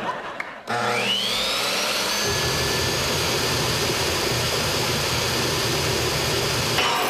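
A motor spins up with a rising whine that levels off into a steady high-pitched running note, loud and noisy, with a low rumble joining a couple of seconds in: a machine set going to destroy a toaster.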